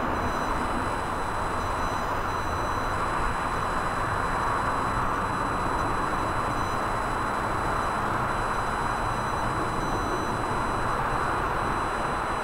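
Steady jet roar of a British Airways Airbus A350-1000's Rolls-Royce Trent XWB turbofans at climb power as the airliner climbs out after take-off, with a faint thin high whine over the roar.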